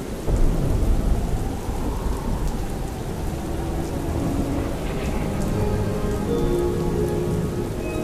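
Steady rain with a rumble of thunder, loudest about half a second in and fading over the next second or two.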